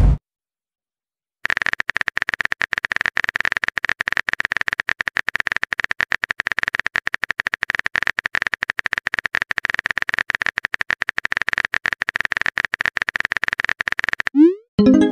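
Rapid, continuous keyboard-typing clicks from a texting-story app's sound effect, for a long message being typed. Near the end the clicking stops and a short rising blip sounds as the message is sent.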